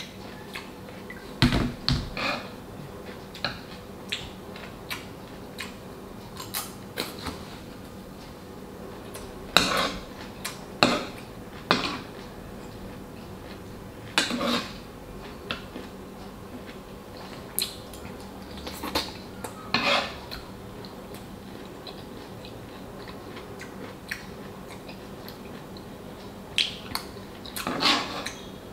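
Metal spoon clinking and scraping against a frying pan while food is scooped from it, in scattered sharp clicks that sometimes come in quick clusters of two or three, over a faint steady hum.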